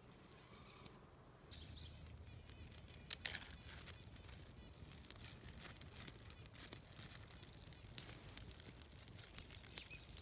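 Small wood campfire crackling faintly with scattered, irregular pops. A bird chirps briefly about a second and a half in.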